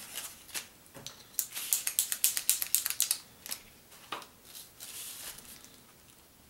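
Rapid run of light clicks and taps from hands handling a paper hang tag and a marker on a work table. The clicks are thickest between about one and a half and three seconds in, then thin out.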